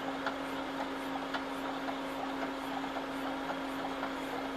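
HomeFill oxygen compressor running with a steady hum and faint regular ticks, while delivering almost no flow.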